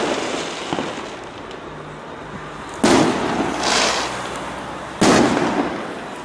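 Aerial firework shells bursting overhead: two sharp bangs about two seconds apart, each dying away over a second or so, with a brief fizzing crackle after the first.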